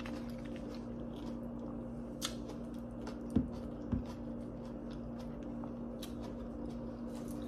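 Close-up chewing of crunchy breaded fried shrimp, with small mouth clicks and crunches. Two brief soft thumps come around the middle, over a steady low hum.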